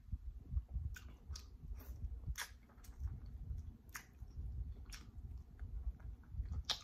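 Close-miked chewing and biting of a crispy air-fried chicken drumstick: wet mouth sounds throughout, with about eight sharp crackles scattered through the bites.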